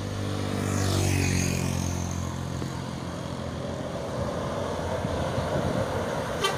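A bus's engine passing close by, loudest about a second in as its pitch drops going past, then running on steadily with road noise.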